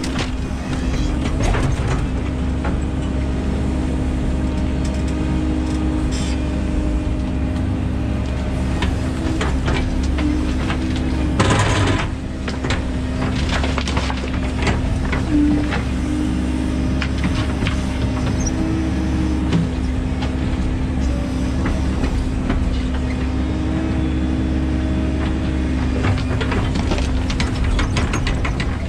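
Excavator's diesel engine running steadily under load. Buckets of wet soil and brick rubble spill into a steel tipper body, with knocks and clatters of the load landing; the loudest clatter comes about twelve seconds in.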